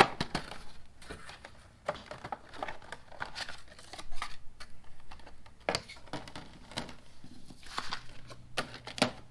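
Knipex electrician's shears being handled, with clicks, rattles and crinkling rustles, perhaps from their packaging. A sharp click comes at the very start and another about nine seconds in. A low steady hum comes in near the end.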